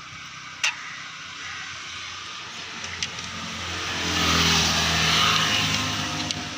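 A motor vehicle's engine running, growing louder a few seconds in and easing off again near the end. Sharp clicks about half a second in and again about three seconds in.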